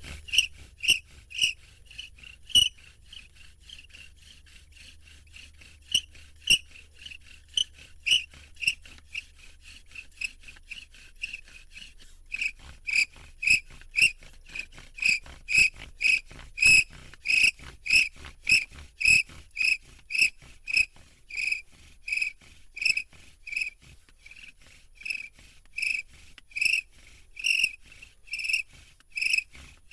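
Hazel bow drill spindle squeaking against its hearth board with each stroke of the bow. The squeaks come in scattered spurts at first, then about twelve seconds in settle into a steady, louder run of about two squeaks a second.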